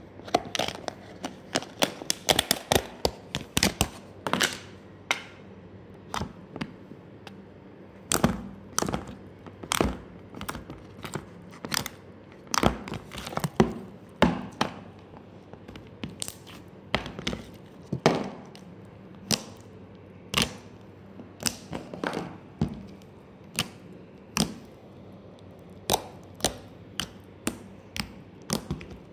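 Glossy slime being pressed, folded and stretched by hand, giving a quick, irregular string of sharp pops and clicks as air pockets burst.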